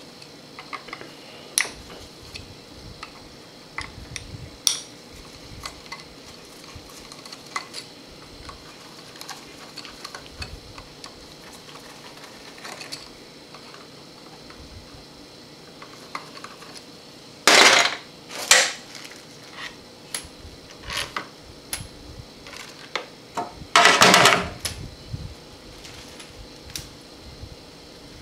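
Screwdriver backing out the screws that hold the oil filter to the valve body of a Chrysler 727 TorqueFlite automatic transmission: small metallic clicks and scrapes, with two louder metal clatters in the second half as the screws and filter come loose.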